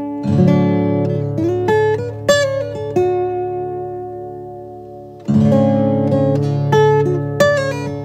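Gentle instrumental background music on plucked strings. A chord is struck about a second in and again about five seconds in, each left to ring and fade, with single plucked notes in between.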